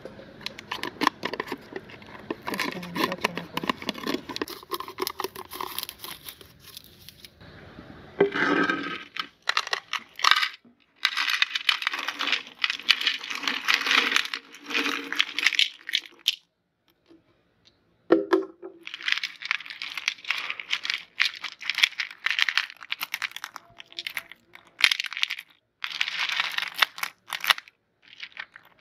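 A plastic jar of sugar-coated orange-slice jelly candies is opened with a plastic crackling. The candies are then tipped out onto a ceramic plate in two long spells of dense clattering and pattering, with a short pause between, and are shuffled around by hand near the end.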